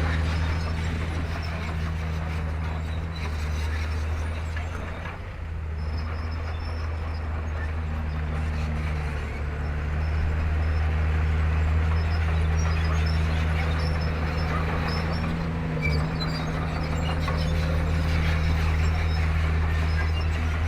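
Komatsu D31P crawler bulldozer's diesel engine running steadily under load, with a short drop in level about five seconds in before it picks up again.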